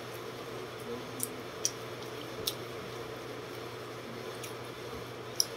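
A person eating by hand, chewing with a few short, wet mouth clicks and lip smacks, about four in all, the loudest near the end, over a steady electric fan hum.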